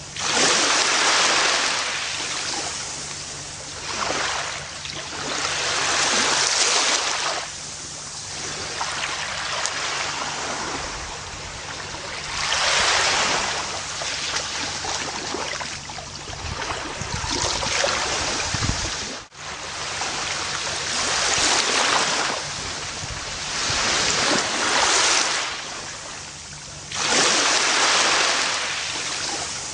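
Gentle ocean waves washing onto a beach, the surf swelling and fading every few seconds. There is a momentary dropout about nineteen seconds in.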